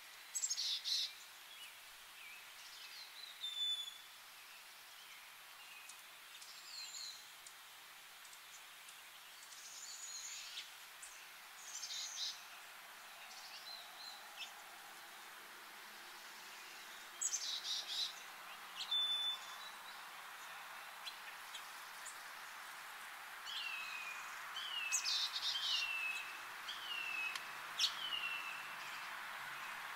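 Wild songbirds calling over a steady outdoor hiss: scattered short chirps, then near the end a run of about five short down-slurred whistles in quick succession.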